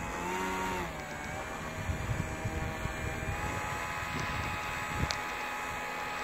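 Electric motor and propeller of an RC model airplane running with a steady whine, the pitch dropping about a second in and rising again a little past three seconds as the throttle changes.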